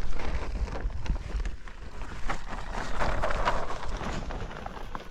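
Wind buffeting the microphone, with scattered knocks and rustling from outdoor work.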